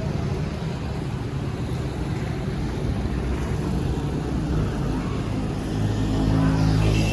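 An engine running steadily, with a low rumble that grows louder about six seconds in.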